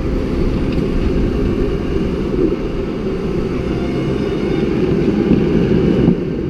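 Tractor engine running steadily, a loud low drone.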